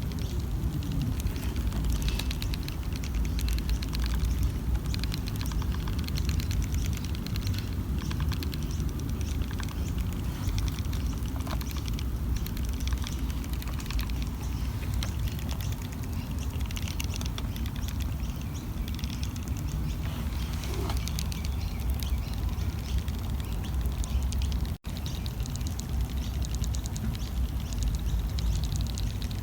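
Termites heard close up: a dense, irregular crackle of tiny clicks and ticks over a steady low rumble, with one momentary break about 25 seconds in.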